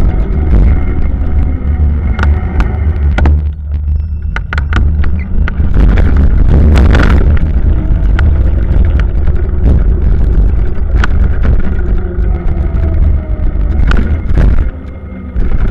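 Wind rumbling on the microphone of a camera riding on a moving bicycle, with scattered clicks and rattles over the road.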